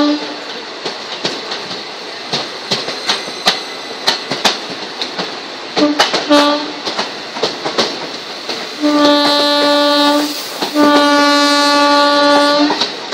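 Blue passenger coaches of an Indian Railways express rushing past close alongside, with wheels clacking sharply over rail joints. A train horn sounds two short toots about six seconds in, then two long blasts in the second half, the loudest part.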